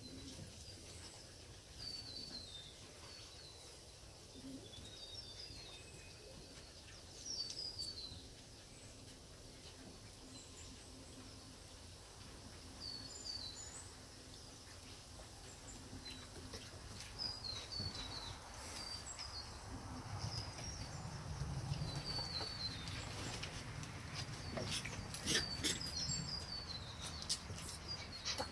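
Small birds chirping repeatedly in short, falling runs of high notes over a low outdoor background. From about halfway, scuffling and sharp clicks grow louder as the Akita puppies scramble over the wooden deck.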